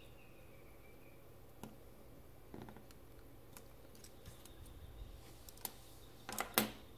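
Faint, scattered small clicks and snaps as tiny laser-cut parts are pressed out of a thin kit sheet and handled on a hard table, with a quick cluster of louder clicks about six and a half seconds in.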